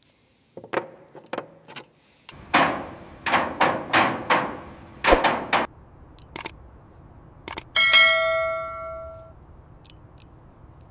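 Metal-on-metal clanks and knocks from parts and tools being bolted together: a few light clicks, then a quick run of sharp, ringing knocks. Near the end comes a single bell-like metallic ding that rings out and fades.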